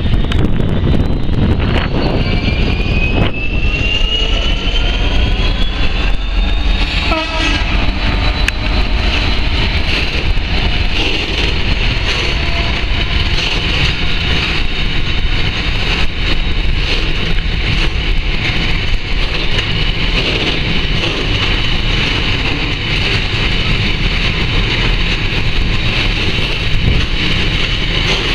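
A Class 66 diesel freight locomotive passing close by, followed by a long rake of stone hopper wagons rolling past with a loud, steady low rumble. A few rising tones sound in the first seven seconds, then a steady high-pitched squeal runs over the rumble.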